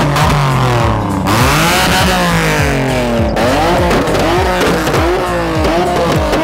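Car engines revving, the pitch rising and falling over and over, with a sudden change about a second in and again a few seconds later.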